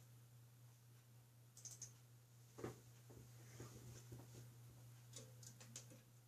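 Near silence: room tone with a low steady hum and a few faint clicks, the clearest about two and a half seconds in.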